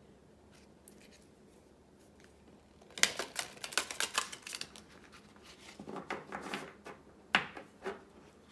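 A deck of oracle cards being riffle-shuffled: two quick flurries of flicking card edges, the first about three seconds in and the second about a second later, then a single sharp snap.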